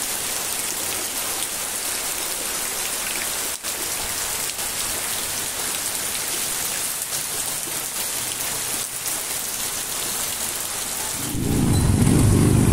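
Heavy rain pouring onto floodwater running across a street: a steady, even hiss. About eleven seconds in, a much louder low rumble of traffic engines takes over.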